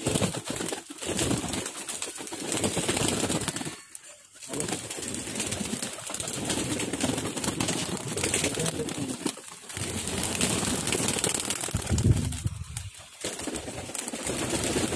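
A flock of Deshi Giribaz pigeons cooing and flapping their wings as they feed on the ground, with brief lulls about four seconds in and again near the end.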